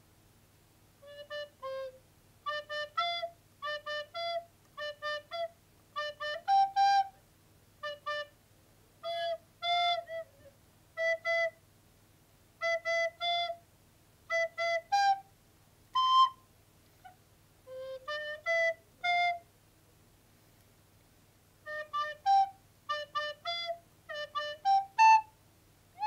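Soprano recorder played slowly in short, separate notes, a halting tune picked out phrase by phrase with pauses between. This is a learner working out fingerings, including a sharp.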